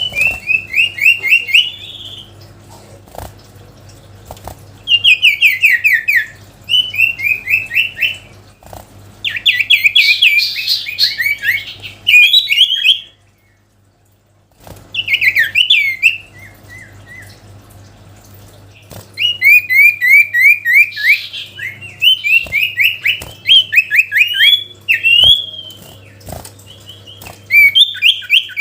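Common iora (sirtu, cipow) singing loud phrases of rapid repeated chirping notes, each burst lasting one to three seconds, with short breaks between them and one longer pause about halfway through.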